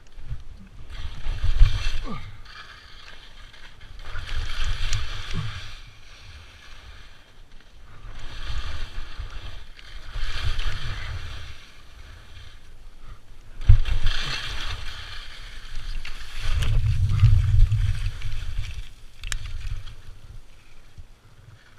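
Repeated swishing of turns on snow, about six long swells of hiss each lasting a second or two, with a low rumble of wind on the microphone under each swell. A sharp knock about two-thirds of the way through.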